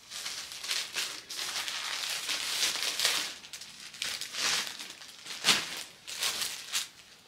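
Plastic clothing bag crinkling and rustling in uneven bursts as clothes are pulled out of it and handled, with a few sharper crackles near the end.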